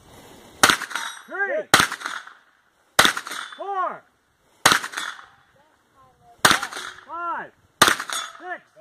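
Six single shots from a 9 mm pistol-calibre carbine (PSA AR9), fired at a slow, deliberate pace about one to two seconds apart. Most shots are followed about half a second later by a short ringing tone, the sound of a hit on a steel target.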